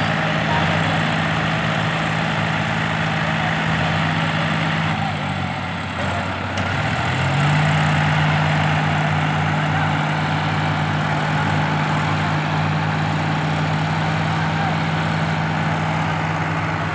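John Deere 5105 tractor's three-cylinder diesel engine running close by at steady revs. About five seconds in, its pitch sags away, then picks back up a second or two later and holds steady again.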